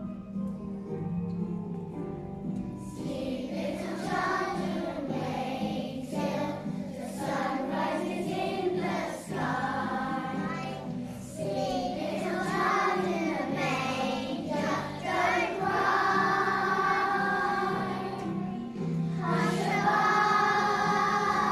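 Children's choir singing a Christmas carol over instrumental accompaniment. The accompaniment plays alone at first, and the children's voices come in about three seconds in.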